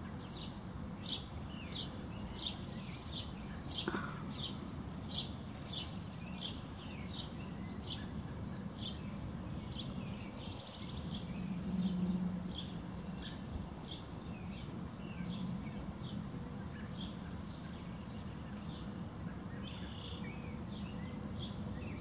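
Small birds chirping in short high notes, a quick run of about two a second through the first half and sparser after, over a steady high pulsing insect trill. A brief low rumble swells about halfway through.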